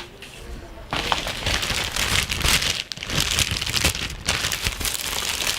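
Parcel wrapping being handled and pulled open, a dense crinkling and rustling that starts about a second in.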